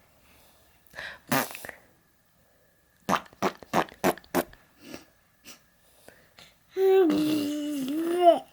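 Baby blowing raspberries, fart-like lip sputters: a short one about a second in, then a quick run of about five sputters around three to four seconds in. Near the end comes a long drawn-out vocal sound held at a fairly steady pitch.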